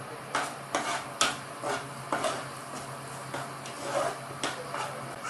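Steel ladle scraping and clinking against a steel pan while stirring a thick curry masala paste, in irregular strokes about twice a second.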